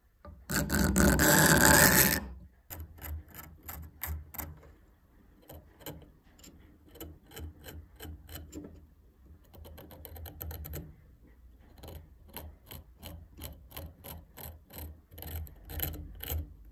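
A steel blade scraping along a beech wood handle for about a second and a half, followed by a long run of short sharp clicks, a few per second with pauses, as the point of a small knife cuts into the wood along a seam.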